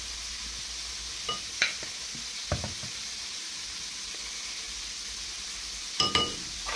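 Chicken frying in hot oil, a steady sizzle, with a few light taps and clicks of a plastic spoon against a ceramic bowl, twice early and again near the end.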